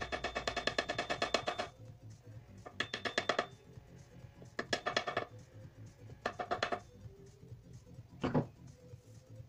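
Plastic-faced mallet tapping on an axe head fitted to its handle: four short runs of rapid taps, about ten a second, then one single harder knock near the end.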